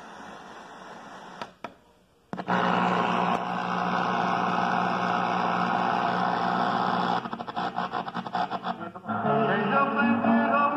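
FM tuner of a Select Sound BT9245 retro radio being tuned by hand. After a brief dropout about two seconds in, there is a steady hiss of static between stations, which turns choppy and breaks up as the dial sweeps. Near the end a station playing music comes in.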